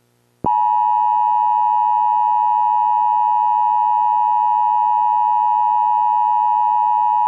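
Emergency Alert System attention signal: a steady, loud two-tone alert tone just under 1 kHz that starts abruptly about half a second in and holds without change.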